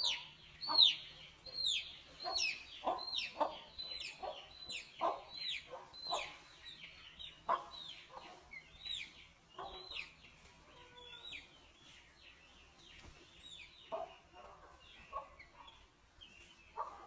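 Aseel chickens calling: a quick run of short, high, falling peeps. The peeps come several a second at first and thin out after about ten seconds into sparser, quieter calls.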